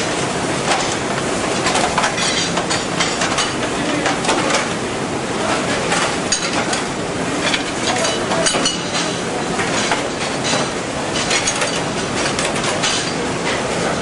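Flight-type conveyor dishwasher running steadily, with frequent irregular clatter of trays and plates knocking against the conveyor's pegs and each other as they are loaded.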